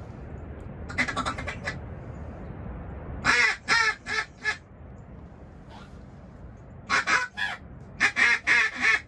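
Duck quacking in four loud bursts of three to five short, rapid quacks each, over a low wind rumble on the microphone.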